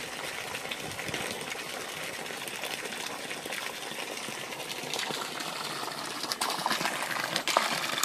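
Water pouring from a pipe in a thin stream into a pond, a steady splashing hiss that gets louder near the end.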